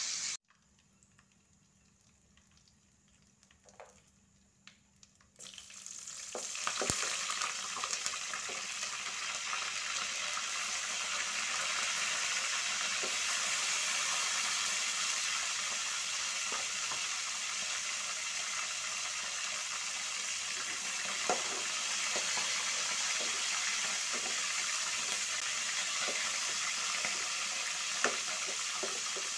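After about five seconds of near quiet, spices and aromatics (pandan leaves, cinnamon, lemongrass, chillies) frying in hot oil in a wok, sizzling steadily. A metal spatula stirs them, with a few sharp scrapes and knocks against the pan.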